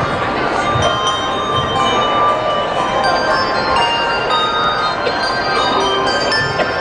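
Handbell ensemble playing a Christmas song: many hand bells ringing, their clear tones overlapping and sustaining as new notes are struck.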